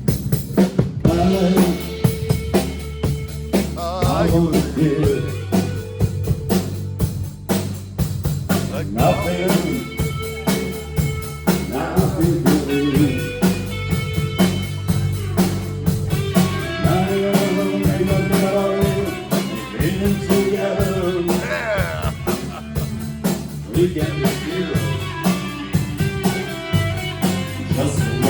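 Live blues band playing: drum kit, bass and guitar, with a voice singing over them.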